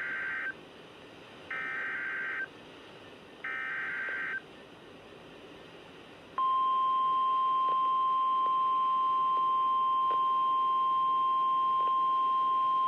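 Three one-second bursts of Emergency Alert System digital data tones, a raspy warble, about two seconds apart. About six seconds in, the NOAA Weather Radio warning alarm starts: one steady, loud high tone that holds.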